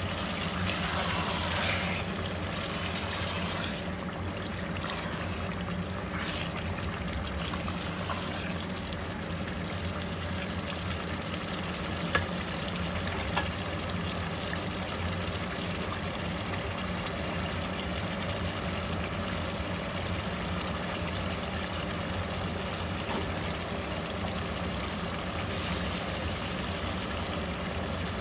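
Potato and pea curry in tomato gravy simmering in a pot on the stove, a steady bubbling sizzle, with a low steady hum underneath. It is stirred with a silicone spatula during the first couple of seconds, and there is a single sharp click about twelve seconds in.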